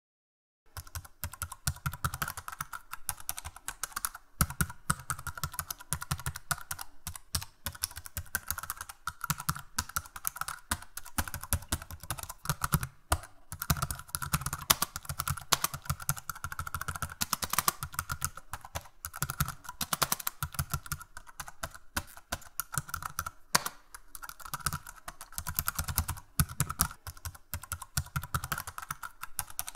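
Computer keyboard typing: rapid, irregular key clicks that keep up without a break, starting about half a second in.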